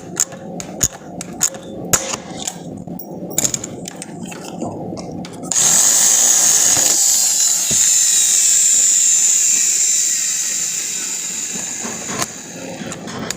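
A series of sharp clicks and knocks, then a power tool starts suddenly about five seconds in, runs loud and steady with a high whine, and dies away near the end.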